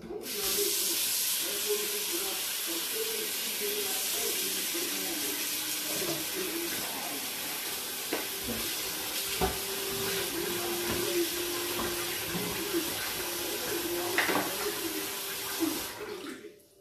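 A kitchen tap running water into a pot of black-eyed beans to rinse them. The water runs steadily, with a couple of light knocks in the middle, and stops near the end.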